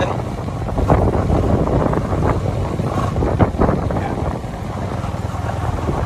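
Motorcycle engine running steadily as it is ridden along a dirt track, heard from the bike itself as a low rumble mixed with wind on the microphone.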